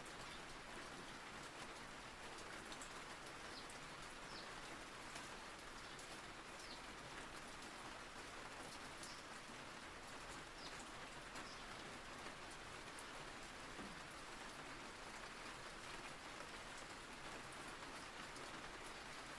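Steady rain falling: a soft, even hiss with scattered drop ticks.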